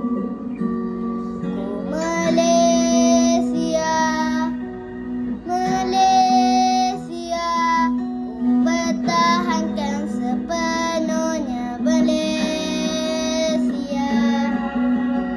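A boy singing a Malay patriotic song over an instrumental backing, holding long sung notes through the lines.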